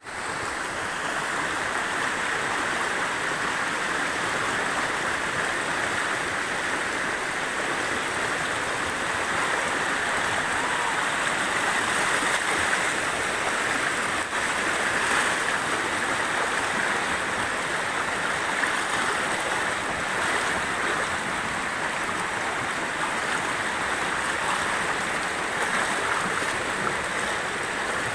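River water rushing steadily: an even, unbroken sound of flowing water.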